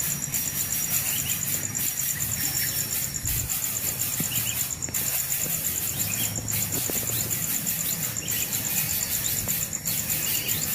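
Steady, high-pitched, pulsing insect trill, broken by short gaps about every second and a half, with faint short chirps underneath.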